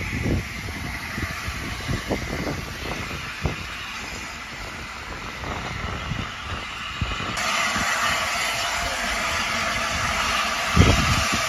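Standing steam locomotive hissing steadily, the hiss stepping up suddenly to a louder, sustained level about seven seconds in. Wind buffets the microphone with low thumps throughout.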